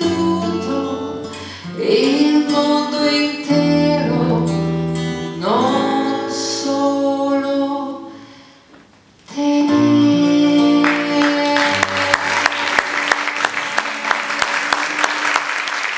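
A woman singing a song with instrumental accompaniment, with short pauses between phrases, then holding one long final note. Audience applause breaks out about eleven seconds in, over the end of the note.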